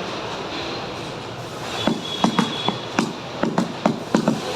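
Factory machinery sound effect: a steady mechanical noise, then a run of sharp knocks, about three or four a second and slightly uneven, with a brief high whine as the knocking begins.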